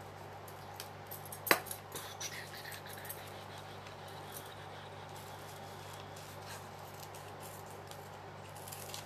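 Paper being handled while collage pieces are arranged on a journal page: one sharp click about a second and a half in, then a few softer ticks and light paper noise. A low steady hum runs underneath.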